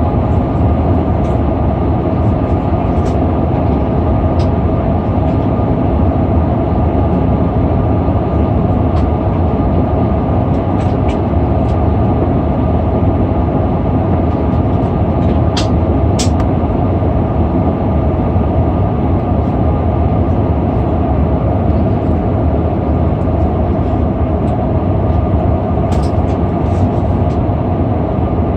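Steady cabin noise of an Airbus A340-600 in flight: a constant rushing roar of airflow and engines with a steady hum running through it. A couple of faint clicks come about halfway through.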